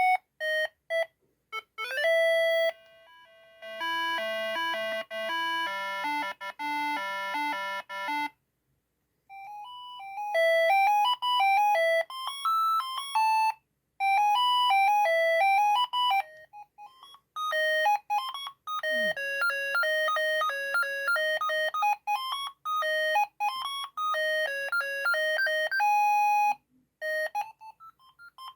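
Siemens ME45 mobile phone playing its built-in ringtones one after another: short electronic melodies of clean beep-like notes, with brief gaps between tunes. The first longer tune, a couple of seconds in, has low notes under the melody; the later ones are a single line of notes.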